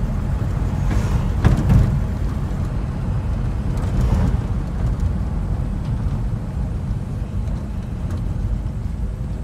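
1956 Studebaker Flight Hawk driving, heard from inside the cabin: a steady low engine and exhaust rumble with road noise, from a car whose exhaust system is down. A few short knocks about a second in.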